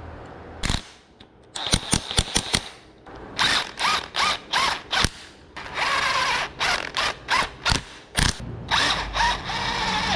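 Ratchet wrench being worked in repeated short strokes, its pawl clicking about twice a second while a bolt is tightened.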